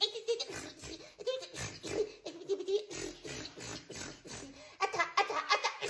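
A person laughing in quick, short bursts, louder near the end.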